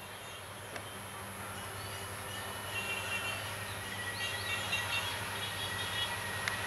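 Distant diesel locomotive hauling a passenger train as it approaches. Its engine is a low, steady hum that slowly grows louder. Birds chirp over it.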